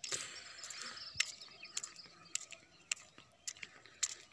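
Light footsteps on a paved platform, about two steps a second, with faint bird chirping in the first second.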